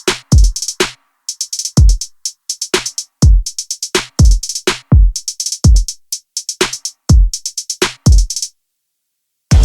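Background music: an electronic drum-machine beat of deep kicks that drop in pitch under crisp hi-hat ticks. The beat stops about a second before the end, and fuller music with bass and chords starts right at the end.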